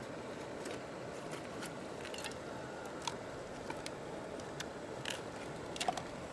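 Knife blade clicking and scraping against the shell of a large pearl mussel as it is pried open, a dozen or so short sharp clicks spread irregularly over a steady rushing background.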